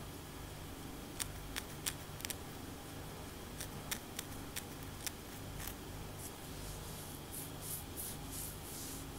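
Long acrylic nails scratching a braided scalp: about ten sharp clicks and taps from the nail tips over the first half, then a run of soft scratching strokes, about three a second, through the rest.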